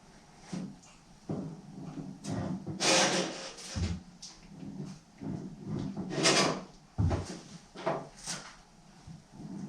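Irregular hand work on sheet metal: scraping and rubbing with a few sharp knocks and dull thumps, the loudest about three and six seconds in.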